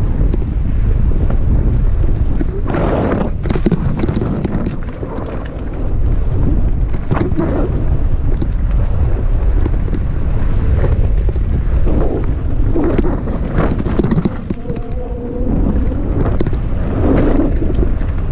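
Heavy wind buffeting on the microphone of a camera moving fast down a dirt trail, with several louder bursts of noise from the ride along the way.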